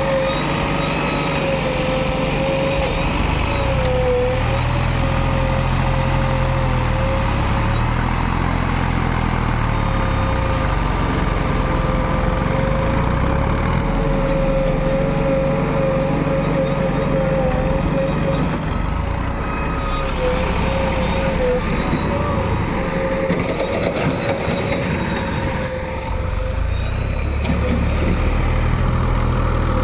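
A JCB backhoe loader's diesel engine running under working load, its note going up and down every few seconds as the machine digs, with a steady high whine over it.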